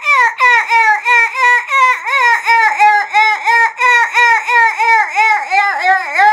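A woman's voice making a rapid run of high, squeaky dolphin-like calls, about three a second, each sliding in pitch: her vocal 'dolphin light language', meant as channelled dolphin speech.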